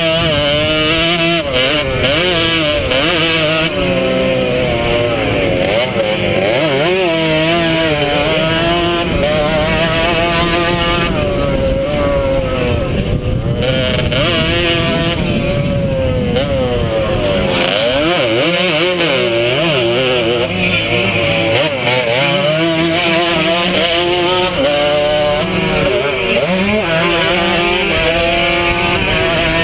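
Vintage 100cc two-stroke motocross bike engine heard from on board, revving hard, its pitch climbing and dropping again and again as the throttle is opened and closed and the gears are shifted.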